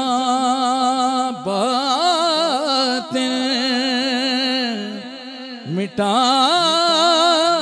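A solo voice singing a devotional Urdu naat in long, ornamented melismatic phrases, holding wavering notes with heavy vibrato and sliding between pitches. It pauses briefly near the end before starting the next phrase.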